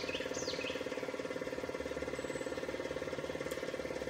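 Steady machine noise: a low hum with a fast, even throb running through it. A small bird gives a few quick falling chirps in the first second.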